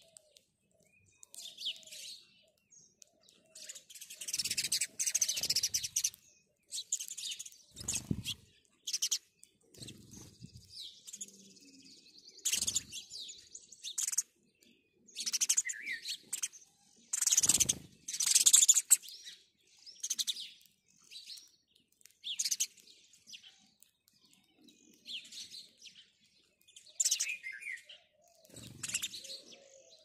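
Several house sparrows chirping in quick, irregular bursts, one burst every second or two. A few short low thumps are heard now and then.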